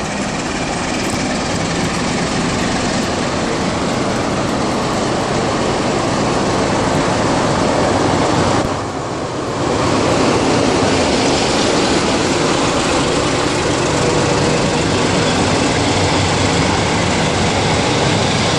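CFR Class 060-DA (Da) diesel-electric locomotive with its Sulzer diesel engine pulling away under power and passing close by, followed by passenger coaches rolling past with steady wheel-on-rail noise. Loudness dips briefly about nine seconds in, as the locomotive goes by.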